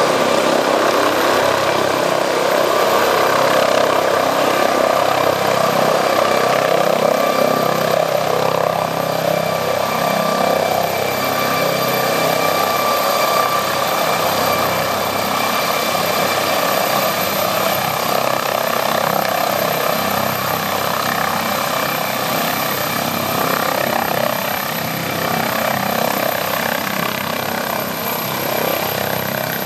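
MD 902 Explorer air ambulance helicopter coming in to land: its engines and rotor run steadily as it hovers low, descends and touches down. The sound eases slightly toward the end while it sits on the grass with the rotor still turning.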